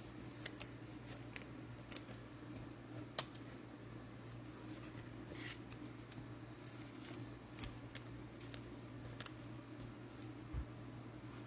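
Faint clicks and scrapes of trading cards and packaging being handled, one sharper click about three seconds in, over a steady low room hum.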